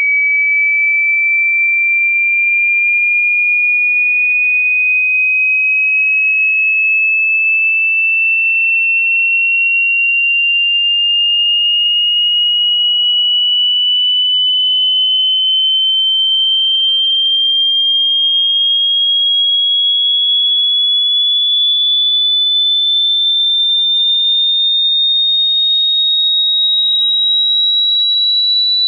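Hearing-test sine tone: a single pure, steady-level tone gliding slowly and evenly upward in pitch, high and whistle-like.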